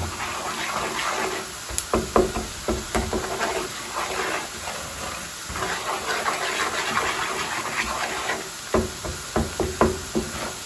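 Minced garlic sizzling and bubbling as it fries in melted butter in a pan, stirred with a wooden spatula that knocks and scrapes against the pan a few times, mostly near the start and again near the end.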